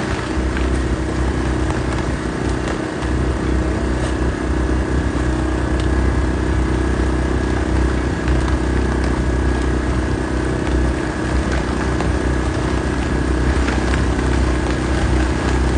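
Strong storm wind buffeting the microphone in a loud, uneven rumble, with a steady droning hum underneath.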